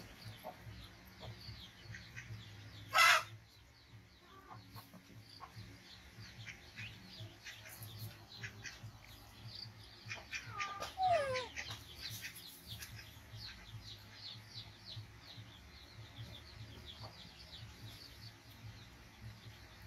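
Chickens clucking and small birds chirping rapidly, with a sharp squawk about three seconds in and a few falling calls around eleven seconds.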